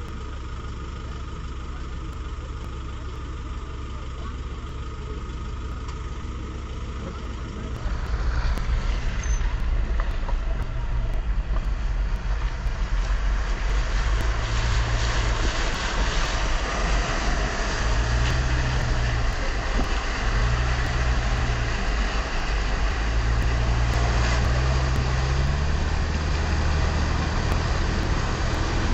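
Vehicle engine running with a steady low rumble. About eight seconds in the level jumps: a louder engine drone that rises and falls in pitch, under a dense rushing wash of water as a vehicle drives through flood water on the road.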